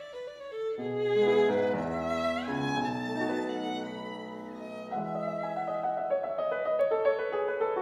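Violin and grand piano playing classical music together: quiet at first, louder from about a second in, with a quick rising run about two and a half seconds in.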